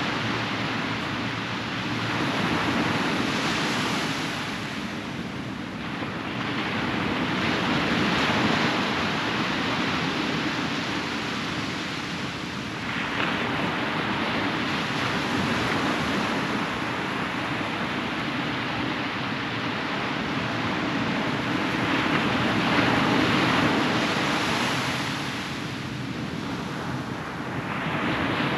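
Ocean surf breaking and washing up on a beach, swelling and easing every few seconds, with a steady low hum underneath.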